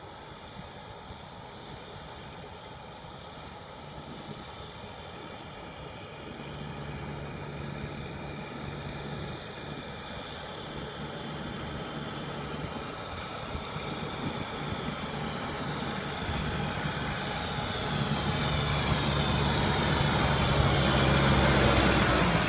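Heavy vehicle engine running and growing steadily louder, with a high whine that shifts in pitch over the second half.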